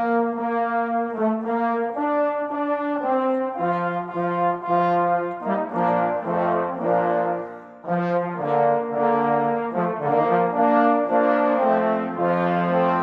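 Brass ensemble playing a slow piece in sustained chords, several horns sounding together, with a brief break between phrases about eight seconds in.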